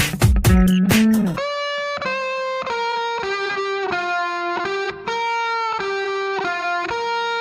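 Music: a beat with drums and bass that stops about a second and a half in, giving way to a slow melodic electric guitar line of held notes, one after another.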